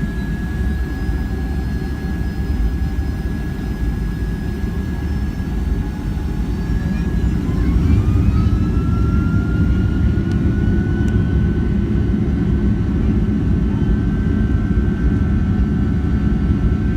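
Jet airliner's turbofan engines running with a heavy low rumble and a steady whine. About seven seconds in, a second whine rises in pitch and the rumble grows louder.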